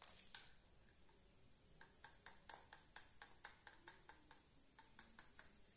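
Faint, irregular light clicks, a few a second, of a plastic spatula against a glass test tube as citric acid is tipped in, with one sharper click at the start.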